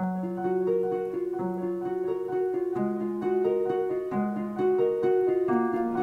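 Solo piano playing a gentle, flowing pattern of repeated broken-chord notes over bass notes that change every second or so.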